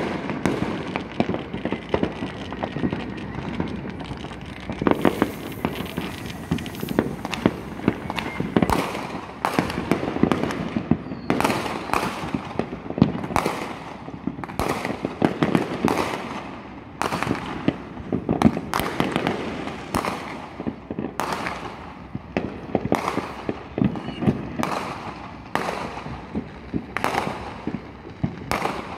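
Many aerial fireworks going off across the neighbourhood: a continuous run of overlapping bangs, with sharper separate reports every second or so.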